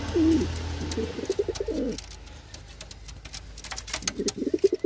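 Fancy pigeons cooing in a plastic crate: a bout of low, wavering coos in the first two seconds and another near the end, with faint clicks in between.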